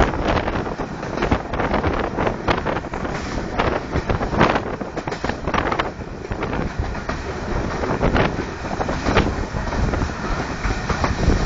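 Karakoram Express passenger train running at speed: a loud, steady rumble of wheels on the track, with irregular sharp knocks and wind buffeting the microphone.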